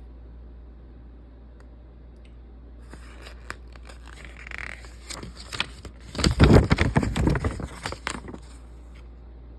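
Packaging being handled, crinkling and tearing. The sound starts about three seconds in as scattered crackles, grows into a dense run of rustling and scraping, and stops about a second before the end.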